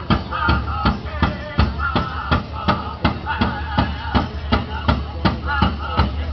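Powwow drum group: several singers' voices over a steady unison beat on a large drum, nearly three beats a second.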